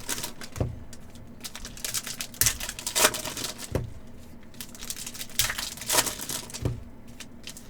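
Hockey card packs being opened and handled: foil wrappers crinkling, with cards giving short irregular clicks and taps on a table about once a second.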